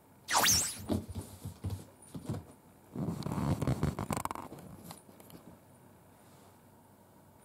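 Two cats play-fighting in and against a fabric dome cat bed: paws scrabbling and thumping on the bed and carpet. The scuffle comes in a short burst a moment in and a longer, busier one around three seconds in, then dies away.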